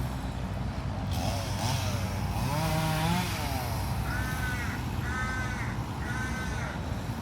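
A crow cawing three times, about a second apart, over a steady low rumble of city traffic. Just before the caws, rising-and-falling birdlike calls sound over a brief hiss.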